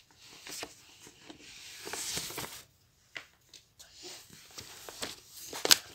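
Soft rustling and rubbing of paper being handled over a notebook, with scattered small clicks and one sharp click near the end.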